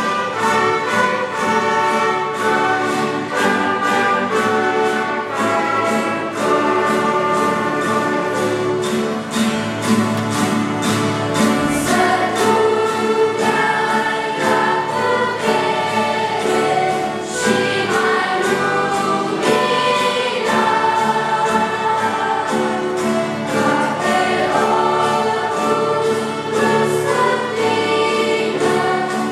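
Choir singing a hymn with a youth orchestra of flute, clarinet, trumpet, violins, mandolins and guitars, the plucked strings keeping a steady beat under the voices.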